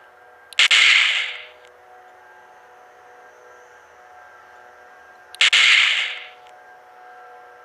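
Two electronic gunshot sound effects from a MILES laser tag gun being fired, each a sudden sharp burst fading over about a second, the second coming about five seconds after the first. A faint steady whine runs underneath.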